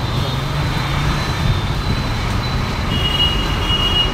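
Busy street noise with a steady low engine hum from nearby traffic. About three seconds in, a high-pitched beeping starts and repeats in short beeps.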